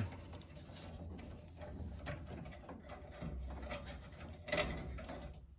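Faint rustling and light clicks of a furnace's bundled control wires being gathered by hand, over a low steady hum. The loudest rustle and knock come about four and a half seconds in.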